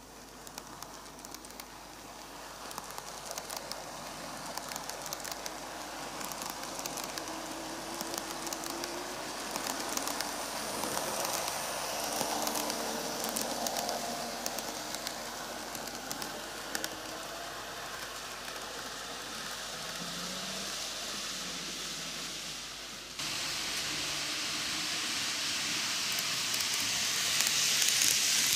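KATO N-gauge Tokyu 5000 series model train running on TOMIX superelevated track, with a rolling rattle and many small clicks of its wheels over the rail joints. It grows louder as it nears, with a sudden step up in loudness late on.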